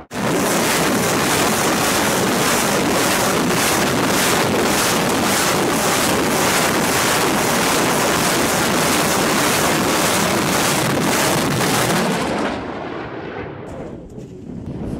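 Multiple rocket launchers firing a salvo: a continuous rushing roar of rocket motors with a rapid, even ripple of launches, fading away about twelve seconds in.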